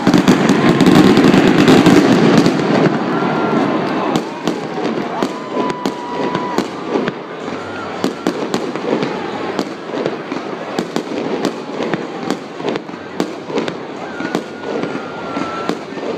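Fireworks display: aerial shells bursting in a rapid, irregular run of sharp bangs and crackles, several a second. A loud rushing noise fills the first two or three seconds.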